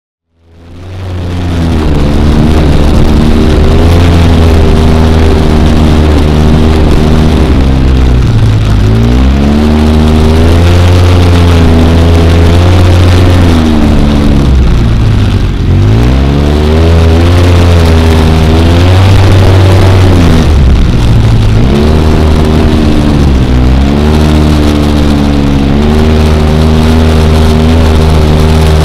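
ATV engine running under way on a dirt trail, heard from the rider's seat, fading in at the start. It holds a steady pitch at cruising revs and several times dips and climbs back, as the rider eases off the throttle and gets back on it, over a steady rushing noise.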